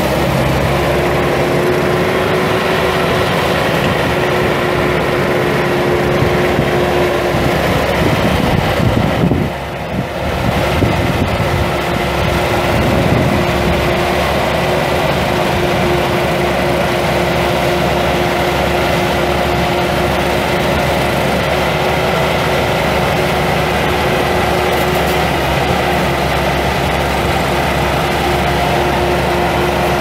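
Kubota V2003-TE four-cylinder turbo diesel of a 2001 Bobcat 773 skid steer running steadily. Its sound briefly dips and changes about ten seconds in.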